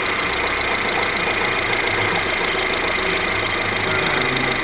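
Kia Sephia 1.5 16-valve DOHC engine idling steadily, with a thin, steady high-pitched whine over it.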